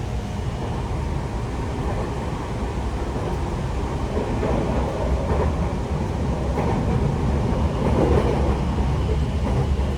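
Toei Mita Line 6500-series train running, heard from inside the car: a steady low rumble of wheels on rail that grows a little louder in the second half.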